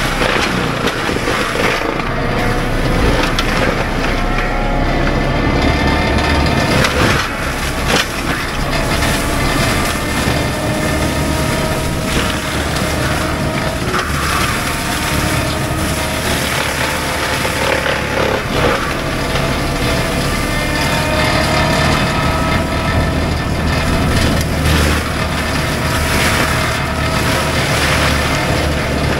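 Cat 299D3 compact track loader's diesel engine running hard under load while the Fecon BlackHawk forestry mulcher drum spins, its pitch wavering as the load changes. Scattered cracks and crunching come from the teeth chewing through brush, wood and soil.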